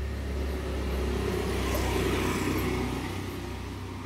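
A motor vehicle passing by, its rumble swelling to a peak about two seconds in and then fading away over a steady low hum.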